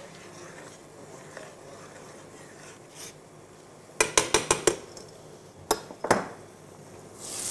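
A long metal utensil clattering against a stainless steel stockpot of boiling pasta: a quick run of about six taps, then two single knocks. Near the end a frying pan starts to sizzle.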